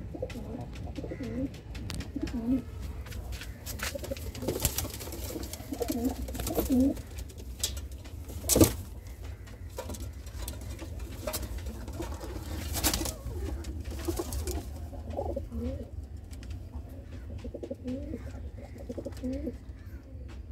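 Domestic pigeons cooing, repeated low rolling coos through the whole stretch. Scattered knocks and rustles fall among them, the loudest a sharp knock about halfway through, over a low steady rumble.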